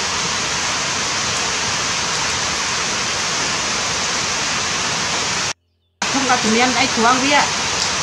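Steady rushing of running water, cut off for about half a second near the middle, with voices coming in over it in the last two seconds.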